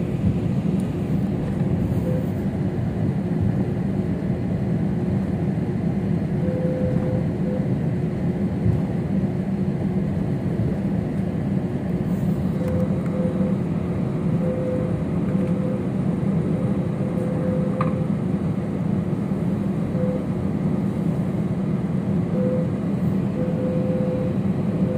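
Steady cabin noise of a Citilink airliner taxiing before take-off, heard inside the cabin: a constant low engine hum with a steady tone above it.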